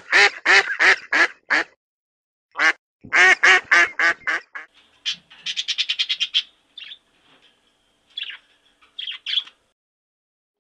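Canada geese honking: two quick series of loud honks, followed by a faster run of shorter, quieter calls and a few scattered calls.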